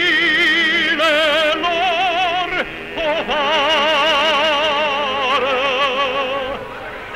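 A man singing in an operatic style, holding long notes with a wide, even vibrato. There is a short break about three seconds in, then one long held note.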